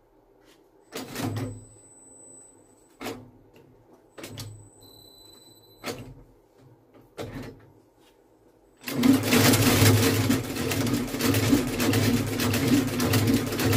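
Shoe sole-stitching machine: a few separate clunks as the machine is turned over by hand and the shoe set in place, then about nine seconds in it starts and runs continuously with a rapid even rhythm, stitching the outsole to the welt.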